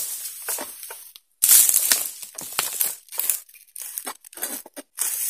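Egrek (sickle blade on a long pole) cutting into the fibrous stalks of oil palm fronds: irregular rasping, tearing strokes with clicks and rustling of the fronds.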